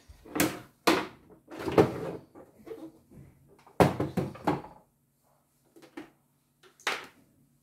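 Hard plastic knocks and clunks as the embroidery unit is detached from a CNY E900 embroidery machine and the flat-bed accessory tray is slid onto the free arm. There are several separate knocks with some rustling handling noise between them, and a last knock near the end.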